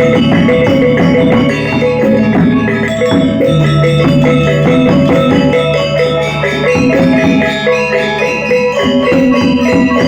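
Balinese gamelan angklung ensemble playing: metallophones struck with mallets in many fast strokes, ringing over sustained low tones.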